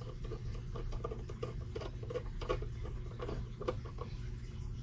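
Irregular light clicks and ticks, a few a second, from fingers handling the metal case of an MFJ-870 SWR/watt meter as it is put back together. A steady low hum runs underneath.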